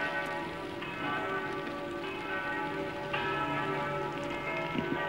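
Church bells ringing, with a fresh stroke about a second in and another about three seconds in, each sounding over the lingering hum of the earlier ones.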